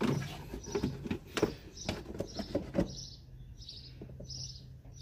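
A bird chirping repeatedly, short high notes about twice a second, over a low steady hum, with a run of clicks and knocks in the first three seconds.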